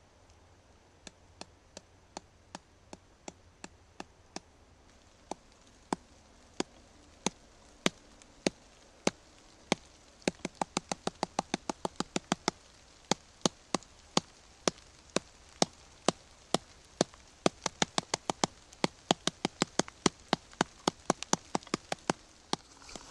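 Fingers tapping on a hard, woody bracket fungus growing on a dead birch branch, giving sharp little knocks. The taps are scattered at first, then come quickly, a few a second, from about halfway through.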